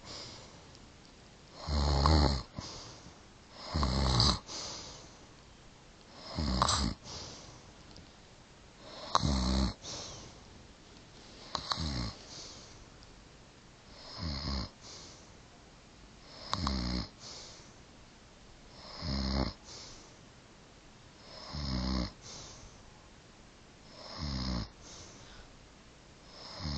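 An elderly woman snoring in her sleep: a short snore roughly every two and a half seconds, each one under a second long, in an even rhythm.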